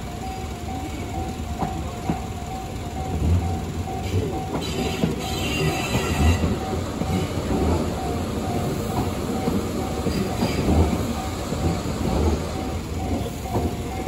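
Japanese railway level-crossing warning bell ringing in a steady repeated ding, two to three strokes a second, over the rumble and wheel clatter of a Tobu commuter train passing through the crossing. A brief higher squeal of the wheels comes about five seconds in.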